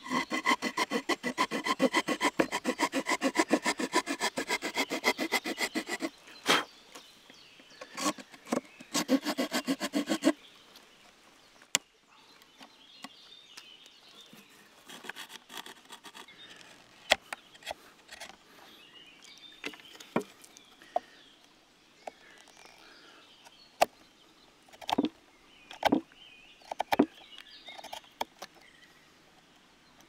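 Victorinox Huntsman pocketknife saw blade sawing fast, even strokes into a thin wooden board for about six seconds, then a second short spell of sawing. After that come scattered clicks and small scrapes of the knife cutting at the wood.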